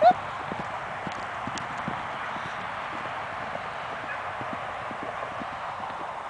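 Horses' hooves beating the ground at a run, with many irregular hoofbeats over a steady rushing hiss.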